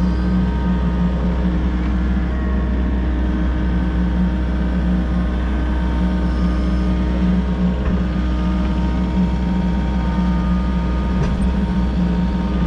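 Diesel engine of a Volvo EC60E mini excavator running at a steady speed, a constant low drone with no revving.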